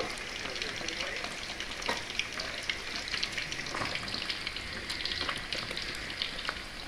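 Pieces of fish shallow-frying in hot oil in a pan, sizzling steadily with many small pops and crackles.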